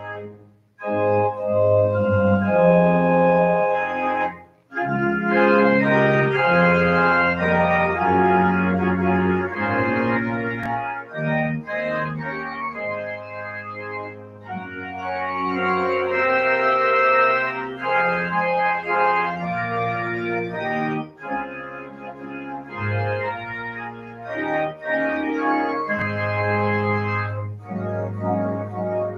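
Church organ playing sustained chords under a moving melody line, with two short breaks in the first few seconds.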